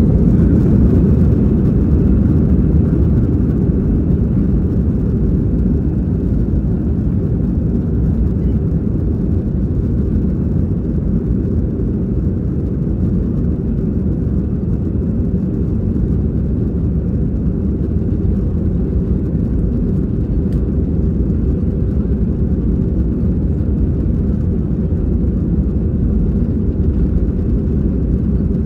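Airbus A320-200's twin jet engines at takeoff thrust, heard inside the cabin from a seat behind the wing: a loud, steady, deep rumble mixed with the roar of the wheels rolling down the concrete runway. It is a little louder in the first couple of seconds, then holds even.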